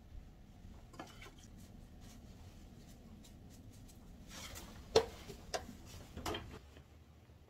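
Kitchenware being handled on a granite countertop: a few faint clicks, then a short clatter of knocks with the sharpest about five seconds in.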